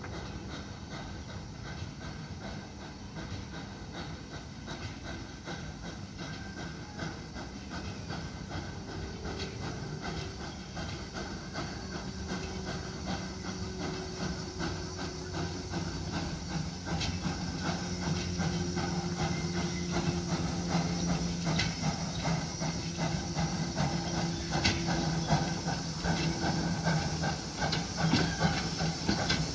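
Steam locomotive of the Baie de Somme tourist railway running with hissing steam and a fast regular beat, growing steadily louder as it approaches.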